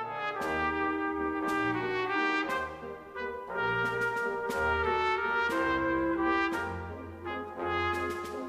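Brass-led orchestral music with sharp percussive hits throughout, typical of the series' closing theme over the end credits.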